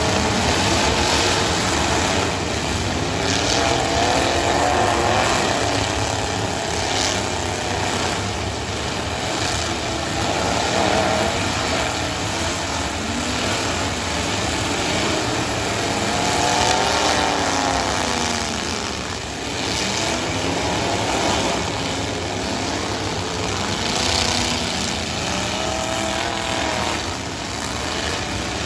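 Several demolition-derby pickup trucks' engines revving hard, rising and falling in pitch over and over, with a few sharp bangs as the trucks hit each other.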